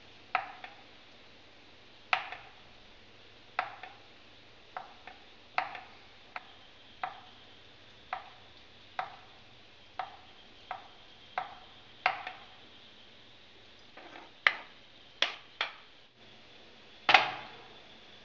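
Kitchen knife chopping a boiled egg white on a wooden cutting board: single chops about once a second. Near the end comes a quicker run of sharper taps, then one louder knock with a short ring.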